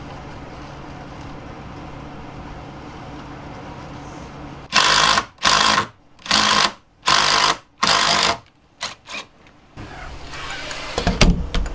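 A handheld power tool run in five short bursts of about half a second each, close together, as a hole or recess is cut in a door for a flush-mount handle. A few light clicks and a knock follow.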